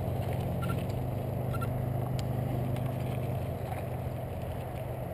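Mountain bike riding down a rocky dirt singletrack, heard from the rider's own bike: a steady low rumble of tyres on gravel and rushing air, easing a little after about three and a half seconds.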